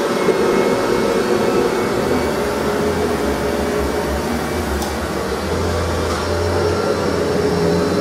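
Upright bagged vacuum cleaner running steadily while pushed across a rug: a continuous motor hum with a steady hiss of airflow.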